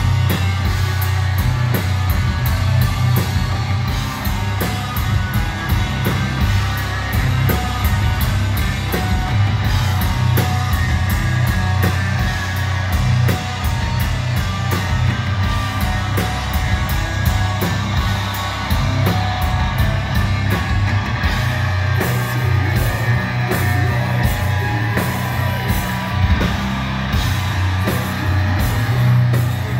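Death metal band playing live: distorted electric guitars and bass over fast, pounding drums, with the low end heavy in the mix. A harsh screamed vocal comes in near the end.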